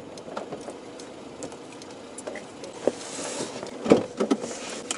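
Scattered light clicks and knocks inside a car cabin, with a brief hiss about three seconds in and a sharper knock just before four seconds.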